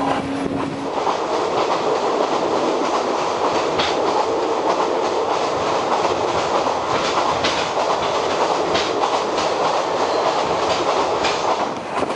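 A passenger train carriage running along the track, heard from inside with the windows open: a steady rush and rumble, with wheel clicks over the rail joints now and then. A steady hum stops about a second in.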